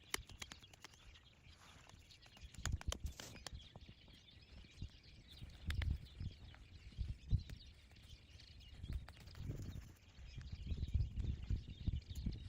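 Branches and forest-floor debris being handled: scattered sharp snaps and cracks of twigs in the first few seconds, then irregular dull thuds that come thicker near the end.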